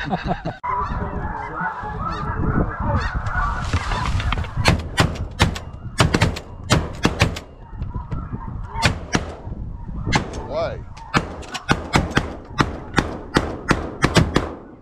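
A flock of snow geese honking overhead, then from about four and a half seconds in a long string of sharp shotgun shots from several hunters, pausing briefly near the middle, while the geese keep calling.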